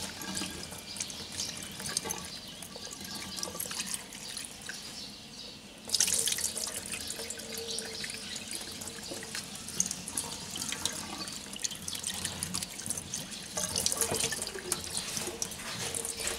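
Cold tap water running over a paper-towel-wrapped glass mason jar and splashing into a bowl and a stainless steel sink. The splashing drops away for a moment about four seconds in, then comes back louder about two seconds later.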